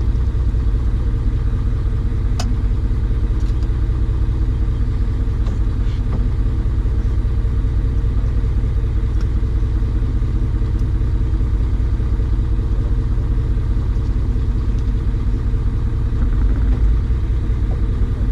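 An engine running steadily, a low, even drone with a few faint clicks over it.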